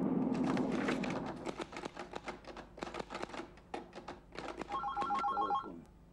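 Telephone keys pressed in a quick run of clicks, then a telephone rings with a brief electronic warble of rapid pulses that stops near the end. Train rumble fades out in the first second.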